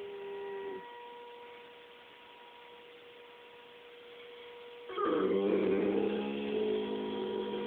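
St. Bernard howling: one howl trails off within the first second, and after a pause with only a faint steady tone a loud, long howl starts about five seconds in.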